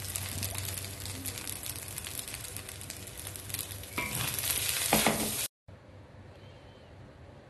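Fried rice being stirred and turned in a wok with a wooden spatula: a steady sizzle on the wok's leftover heat after the hob is switched off, with scrapes and clicks of the spatula against the pan. The sound cuts off suddenly about five and a half seconds in, leaving faint room tone.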